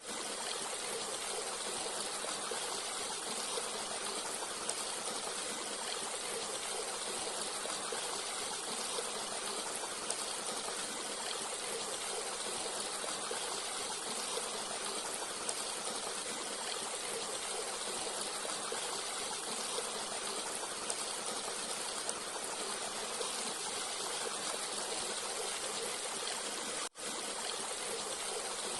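Forest stream flowing: a steady rush and trickle of water, broken by a momentary gap near the end.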